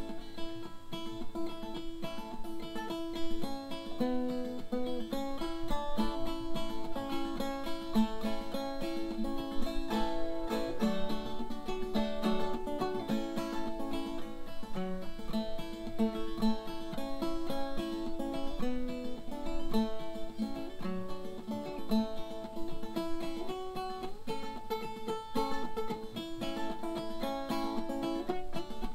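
Background music: acoustic guitar playing a melody of changing plucked notes.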